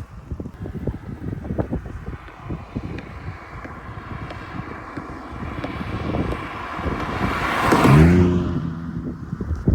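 Mk8 Ford Fiesta ST with a Milltek cat-back exhaust driving past: its 1.5-litre turbocharged three-cylinder engine note swells as it approaches, is loudest about eight seconds in, then drops in pitch as the car goes by.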